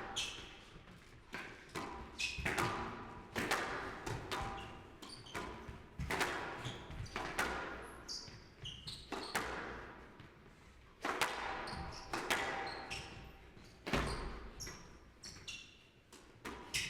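A squash rally: the ball is struck by rackets and smacks off the court walls about once a second, each hit ringing briefly, with short high squeaks between the hits.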